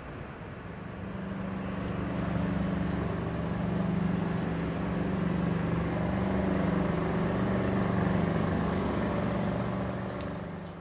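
A motor vehicle's engine hum going by: it swells about a second in, holds steady for several seconds and fades away near the end.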